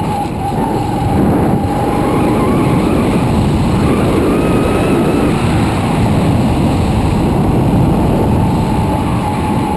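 Motorbike riding along a road: its small engine runs steadily with a faint whine that shifts slightly in pitch, under constant wind and road noise.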